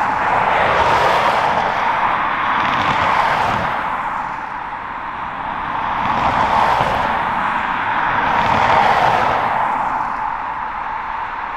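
Jet engines of a taxiing Boeing 777-300 running at low taxi power: a steady rushing noise that swells and eases a few times.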